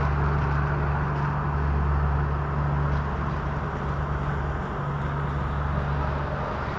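Road traffic driving past on wet asphalt: a small car and then a refrigerated panel van pass close by near the end, over a steady low engine hum.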